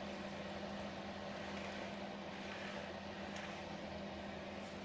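Steady low hum over faint room noise, with a faint click or two.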